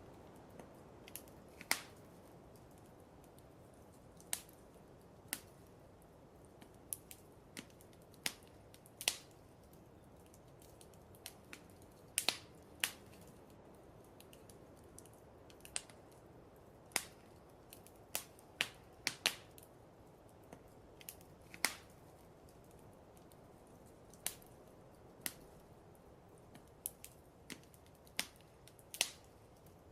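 Wood fire crackling in a fireplace: irregular sharp pops and snaps, several of them loud, over a low steady hiss.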